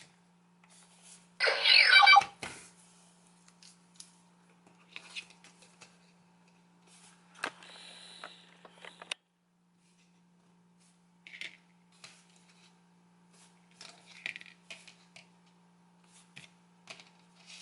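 Plastic toy clicks and taps as the Morph-X keys are handled, with one short, loud electronic toy sound about two seconds in. A faint steady hum, typical of a toy's speaker, cuts off about halfway.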